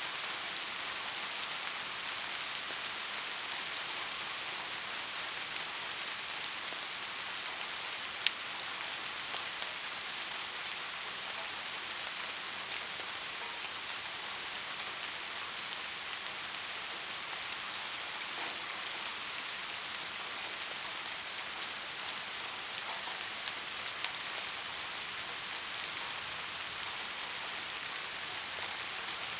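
Steady soft rain falling, an even hiss with scattered drop ticks and one sharper drop about eight seconds in.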